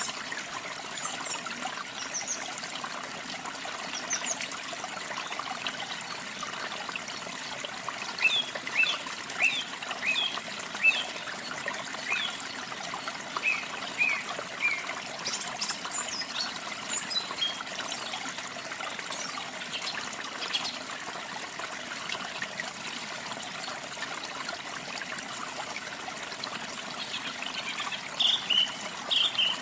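Running water trickling steadily, with small birds chirping over it in short runs of quick calls, busiest from about eight to fifteen seconds in and again near the end.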